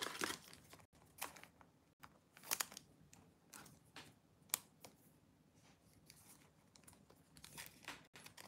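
Faint, scattered clicks and rustles of trading cards and plastic card holders being handled.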